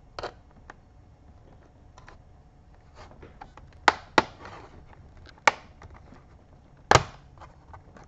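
Plastic retaining clips of a laptop's bottom access cover snapping loose as it is pried off, with small clicks and then four sharp snaps in the second half, the last the loudest.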